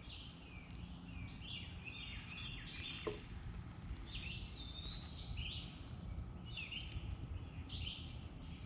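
A songbird calling repeatedly in short high chirps and warbling phrases over a low steady outdoor rumble.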